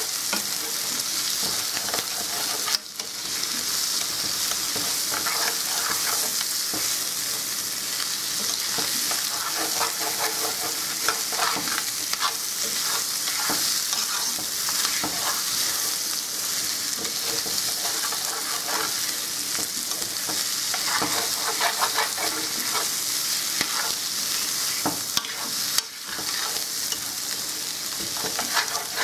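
Risotto rice frying in oil in a pan, sizzling steadily while it is stirred with irregular scraping. The sizzle dips briefly about three seconds in and again near the end.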